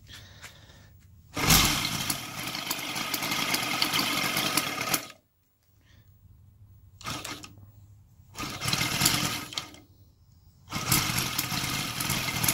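SIDEL 770 seven-cylinder model radial engine, converted to gasoline with CDI ignition, being hand-started by flipping the wooden propeller. It runs for about four seconds and cuts out, fires briefly twice more, then catches about eleven seconds in and keeps running.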